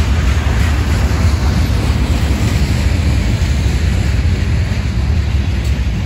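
Freight cars of a CSX manifest train rolling past close by: a steady, loud rumble of steel wheels on the rails, with wind buffeting the microphone.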